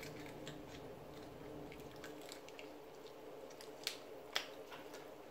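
Boiled shellfish shell being cracked and pulled apart by hand: faint small cracks and clicks, with two sharper cracks about four seconds in, over a low steady hum.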